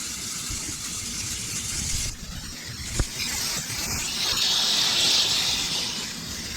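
Hose spray nozzle spraying water onto a window air conditioner's evaporator coil: a steady hiss that eases off about two seconds in, with a sharp click near three seconds, then comes back stronger.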